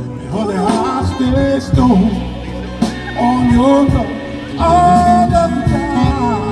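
A live band playing a slow soul song: a wavering melodic lead line over bass, keyboard and drums, with a held lead note about two thirds of the way through.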